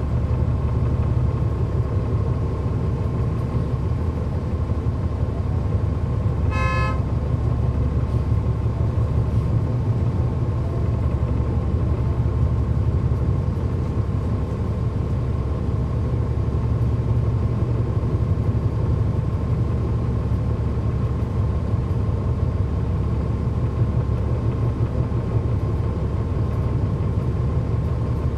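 Cummins ISL9 diesel engine of a 2009 NABI 40-SFW transit bus running steadily, heard from on board the bus. A short horn toot sounds once about seven seconds in.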